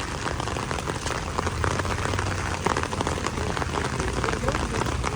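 Heavy rain falling and splashing on a street, a dense crackle of drops. A low rumble under it swells between about one and a half and three seconds in.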